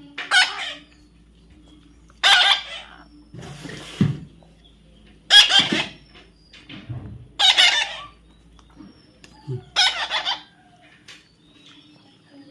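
Parrot squawking: about five loud, harsh calls roughly two seconds apart, each about half a second long.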